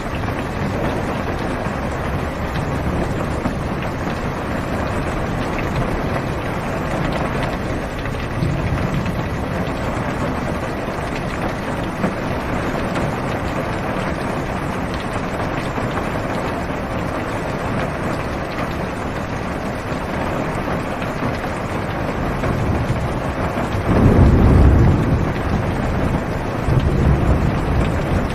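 Steady heavy rain on a car's roof and windows, heard from inside the car. Near the end, a louder low rumble of thunder swells up, followed shortly by a smaller one.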